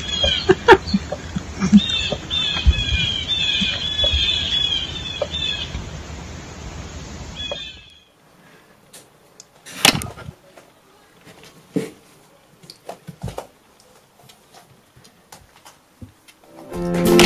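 Small birds chirping in quick repeated short falling calls, with a few knocks, for about eight seconds; then, after a cut, mostly quiet with scattered light clicks and one louder knock about ten seconds in.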